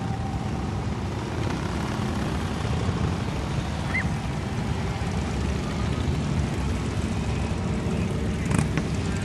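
A procession of motorcycles, many of them Harley-Davidson V-twin cruisers, rumbling steadily past one after another. A brief sharp click comes near the end.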